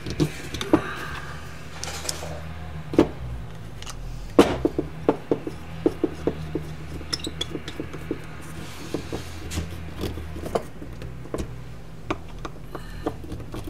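A screwdriver turning small screws down inside a plastic brake-fluid reservoir to fix it onto a motorcycle master cylinder, with irregular sharp clicks, taps and scrapes of metal parts being handled on a workbench. A steady low hum runs underneath.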